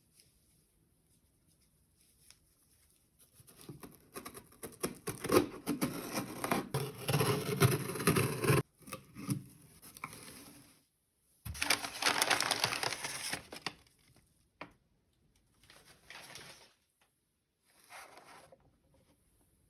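Hands opening a toy's cardboard box packaging, in two longer noisy stretches of handling a few seconds apart, then several short bursts.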